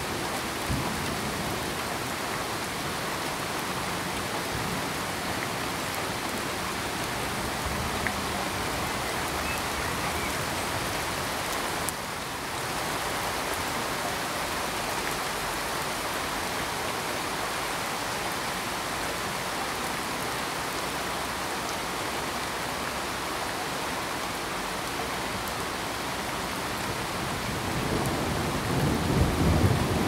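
Steady, even rainfall hissing. Near the end a low rumble of thunder swells up.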